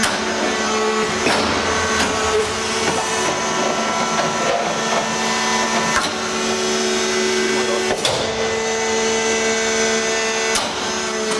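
WEIMA TH1500M hydraulic briquetting press running while it compacts aluminium chips. Its electric motor and hydraulic pump give a steady hum with several held whining tones, and the tones shift a few times.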